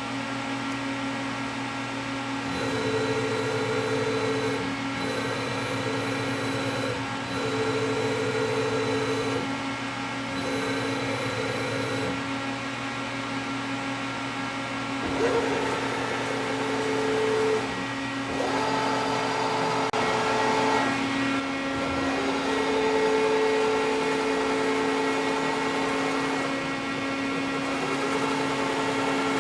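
Mori Seiki TL-40A CNC lathe running under power: a steady hum of its motors and hydraulics, with a motor whine that starts and stops in spells of about two seconds. In the second half the whine comes back at changing pitches, including a higher one about two-thirds through, as the machine moves.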